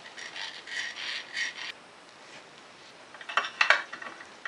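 Hand-pump oil can squirting oil onto the threads of a clutch puller tool: a quick run of short rasping pumps, about three a second, that stops about two seconds in. A few sharp metal clicks and knocks follow near the end as the tool is set into the ATV's drive clutch.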